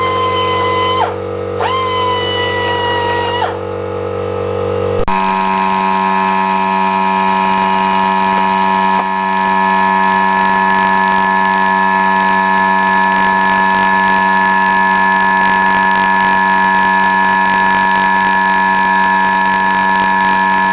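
Parkside air die grinder spinning at high speed off a 24-litre air compressor, which runs alongside it. The grinder's whine dips and recovers twice in the first few seconds, and about five seconds in the sound shifts to a different steady, multi-tone hum; the compressor is a bit underrated for the grinder's air demand.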